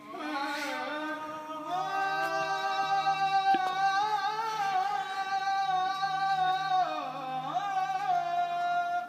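Music with a voice singing long held notes, a short dip in pitch about seven seconds in, used as an entrance theme.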